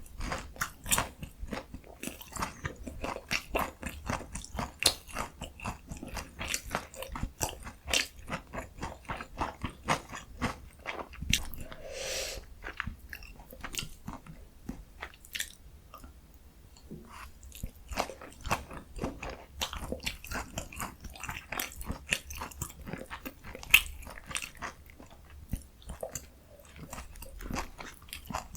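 Close-up eating sounds of breaded pork cutlet (donkkaseu) with kimchi and cheese: a dense run of crisp crunching bites and chewing, with a brief soft mouth sound about twelve seconds in.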